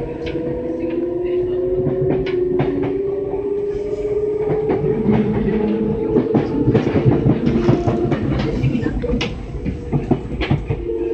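Kintetsu 6020-series electric train pulling away and accelerating: the motor whine rises slowly in pitch for about the first five seconds and then holds steady. Through it come sharp clicks of the wheels over rail joints and a running rumble.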